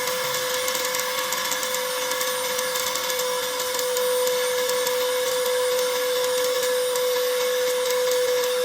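Small high-speed jet fan motor of a homemade PVC-pipe vacuum cleaner running at a constant speed, a steady high-pitched whine over airy hiss.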